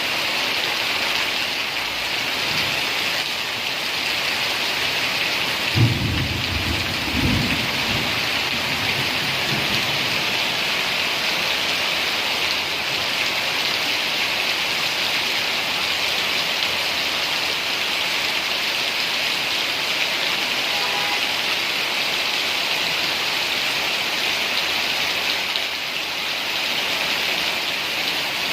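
Steady rain falling, with a short low rumble of thunder about six seconds in that lasts about two seconds.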